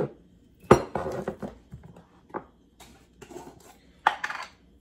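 A metal spoon clinking and knocking against a glass mixing bowl, several separate strikes with the sharpest about a second in, and a short scrape near the end.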